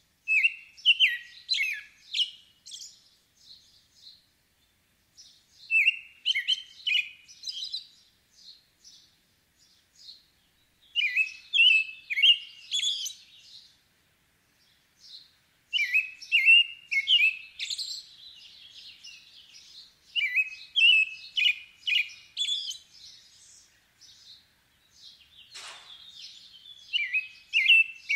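American robin singing: bouts of quick whistled phrases a few seconds long, separated by short pauses.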